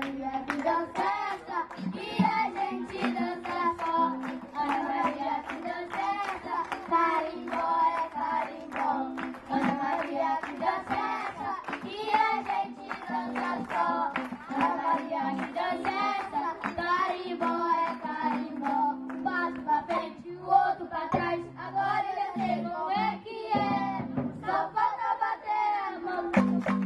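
Children's group singing a carimbó song into microphones, backed by drums and other live instruments with a steady percussive beat.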